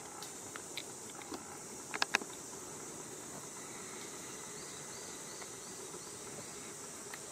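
Steady high-pitched drone of insects in summer vegetation. Two sharp clicks about two seconds in, and a faint run of short repeated chirps around the middle.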